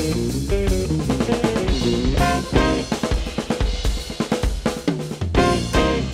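Small jazz band playing, with a drum kit to the fore: a busy run of snare and bass drum hits under sustained guitar and brass notes.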